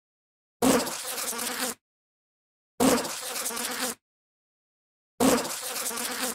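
A bee buzzing in three bursts of about a second each, separated by about a second of silence; each burst starts at its loudest, then holds a steady drone.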